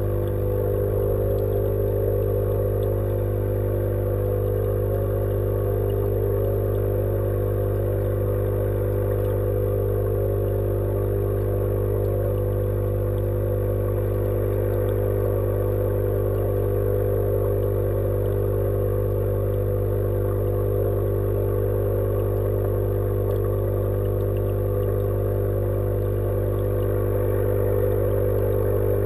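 Aquaponics tank's pump running, picked up underwater: a steady, unchanging low hum made of several held tones.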